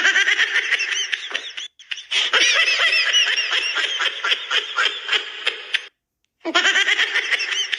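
Parody emergency-alert alarm audio: a dense, chaotic pile-up of many short rising-and-falling squeals. It comes in three long bursts with a brief break after about two seconds and a half-second silence near the end.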